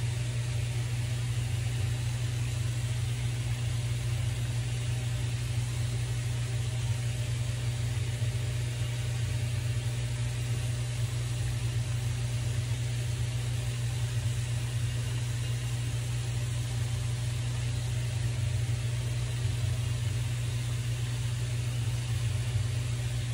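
A steady low mechanical hum with an even hiss over it, unchanging in pitch and level.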